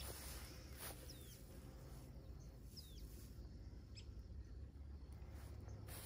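Faint open-country quiet with a few brief, high bird chirps that fall in pitch, over a low steady rumble.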